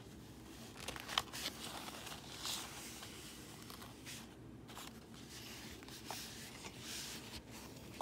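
Faint rustling and crinkling of a rolled diamond painting canvas being handled and smoothed flat by hand, in several short scattered strokes.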